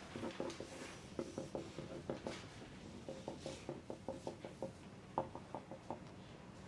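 Pencils writing on paper at desks: a quick run of short scratches and taps in a small room, with one sharper tap about five seconds in.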